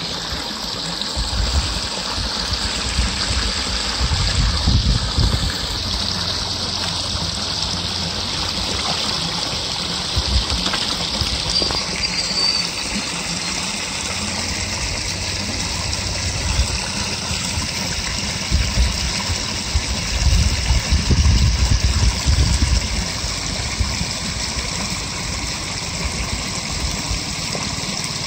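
Water spilling over a small stone weir into a pool: a steady rushing and gushing, with bouts of low rumbling at times.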